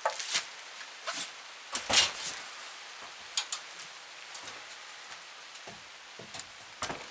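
Scattered wooden knocks and bumps as a long framing board is handled and stood into place, the loudest about two seconds in, over a steady hiss of rain on the tarp overhead.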